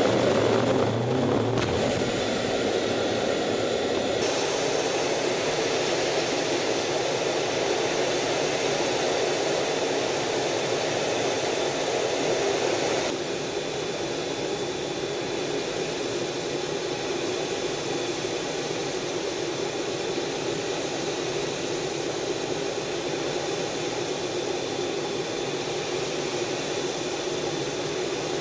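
Steady jet noise heard from inside the F/A-18F Super Hornet's cockpit: a continuous rush of engine and airflow with a thin, steady high whine above it. The sound shifts abruptly about 2 s and 4 s in, and drops a little in level about 13 s in.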